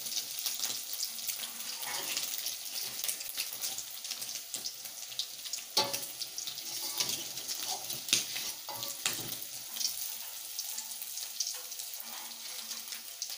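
Noodles and egg frying in a wok: a steady hiss of sizzling with crackles, and a few sharper knocks partway through.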